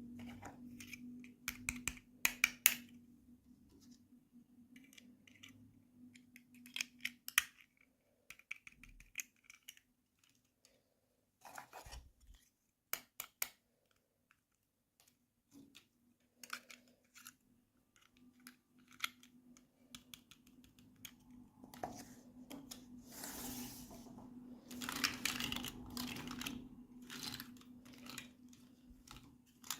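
Small sharp plastic clicks and taps of toy packaging and pieces being handled during an unboxing, scattered irregularly. About 22 seconds in, a longer stretch of crinkling and rustling follows. A faint steady low hum lies underneath.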